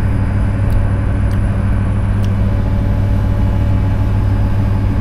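Steady low drone of a car ferry's engines, heard from the open car deck, with a few faint ticks.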